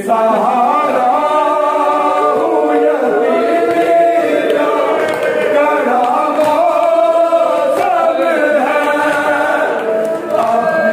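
A group of voices chanting a noha, a Shia lament, in chorus without instruments.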